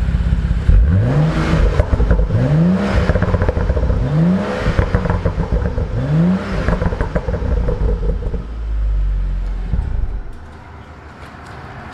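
BMW M235i's turbocharged straight-six engine revved four times in a row, each rev rising in pitch and falling back. It then settles into a steady low drone that fades out near the end.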